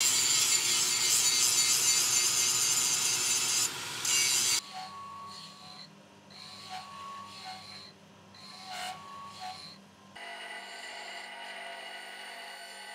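Angle grinder's abrasive disc grinding the rusty steel cross blade of a meat grinder: loud and harsh, stopping abruptly about four and a half seconds in. A much quieter grinding wheel then works across the perforated grinder plate with a low hum and short whines every second or so, and about ten seconds in a bench grinder takes over, running steadily with the blade held to its wheel.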